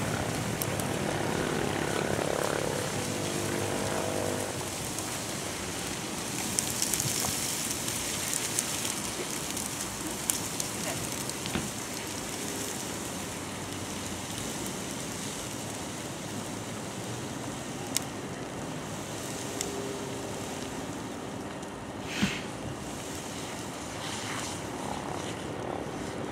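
Steady rushing noise of a fire hose spraying water onto a burning grass fire, with a motor running underneath. A few sharp pops, one louder near the end.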